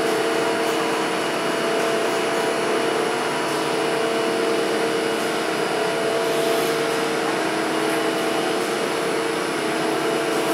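Gondola lift station machinery running: a steady mechanical hum and whine, with several held tones, as the haul rope runs over the station's sheave wheels.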